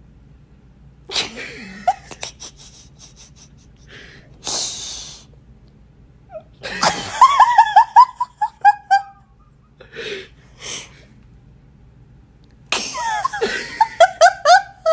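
A person laughing hard in fits: breathy, wheezing gasps, then rapid runs of short, squeaky falling notes in two loud bouts, about seven and about thirteen seconds in.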